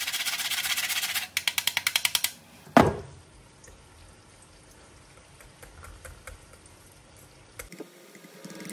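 Kitchen utensil scraping at a pot of minced-meat tomato sauce being seasoned: a dense scrape, then rapid even strokes at about ten a second, then one sharp knock about three seconds in, followed by faint clicks.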